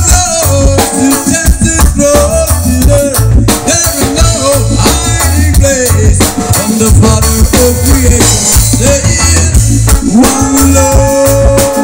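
Live band music: an electric guitar playing over a drum kit and a heavy bass line, with a man singing.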